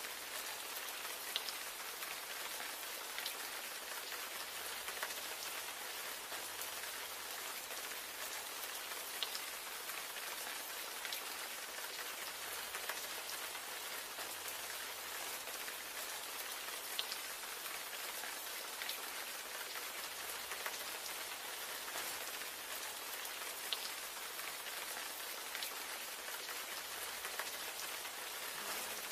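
Steady rain falling on a hard surface: an even hiss with scattered sharper drop ticks.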